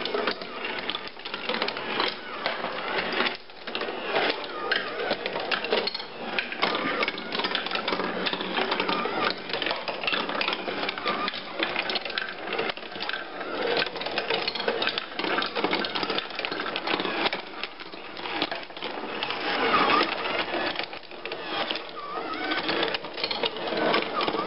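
Wooden marble machine running: steel marbles rolling along wooden tracks, dropping and riding up the lift, making a dense, continuous clicking and rattling.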